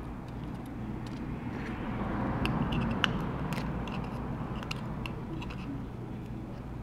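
Light scattered clicks and ticks of small tools and phone parts being handled, over a steady low background rumble.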